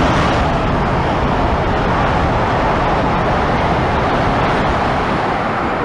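CRH380CL high-speed train running past at speed: a loud, steady rush of air and wheel noise.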